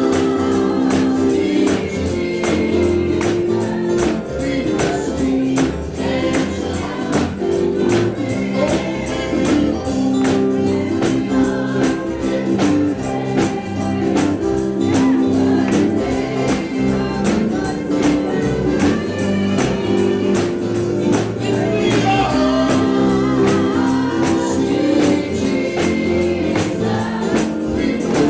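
Live gospel praise music: a band with a steady beat and tambourine, and a group of voices singing.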